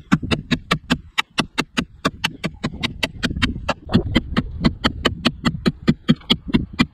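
Victorinox Venture fixed-blade knife striking the sheet metal of a VW Golf car door over and over, a fast, even run of sharp metallic impacts at about four to five a second.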